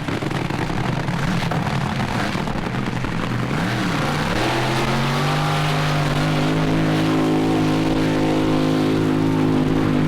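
AA fuel dragster's supercharged nitro-burning engine being revved: a quick blip of the throttle, then about four seconds in the note climbs and holds steady at high revs.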